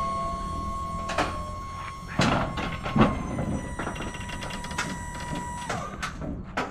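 Box truck's hydraulic liftgate lowering a loaded pallet jack and crate: a steady mechanical whine runs under a series of metal clunks and knocks, the loudest about three seconds in, and the whine stops shortly before the end.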